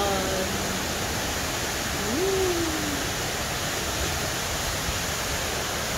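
Steady rushing of a large indoor waterfall, the Rain Vortex, falling into its pool. A single short sung note rises and falls about two seconds in.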